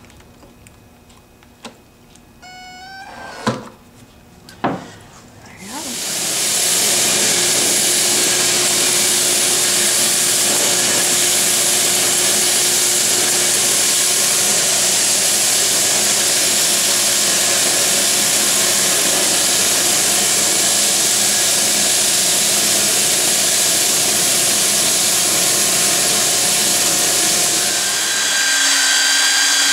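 A cordless drill spins up briefly a couple of times, then a stroke sander's long abrasive belt runs steadily over a plywood panel with a high steady whine. Near the end the sound changes to a handheld belt sander's motor running.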